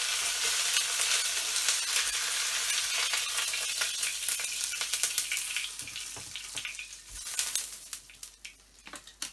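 Bánh xèo (thin rice-flour crepe) sizzling in hot oil in a nonstick wok as it is lifted out with spatulas. The sizzle fades from about five seconds in, leaving a few light clicks and scrapes in the emptied pan.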